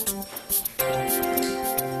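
Instrumental background music with a steady beat: held chords over repeating bass notes and regular light high ticks.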